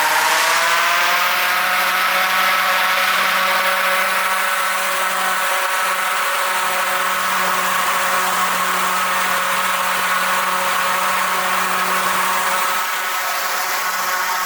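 Electric blower fan spinning up with a rising whine over the first second, then running steadily at full speed with a constant motor whine over rushing air.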